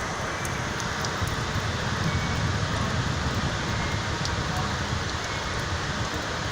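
Rainstorm: a steady hiss of rain and wind, with a low wind rumble on the microphone that swells a little around the middle.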